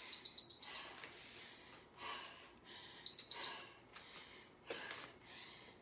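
Workout interval timer beeping a high steady tone, which ends just under a second in and sounds again briefly about three seconds in, marking the end of a work interval. Between the beeps comes heavy breathing, several breaths about a second apart, after an exercise round.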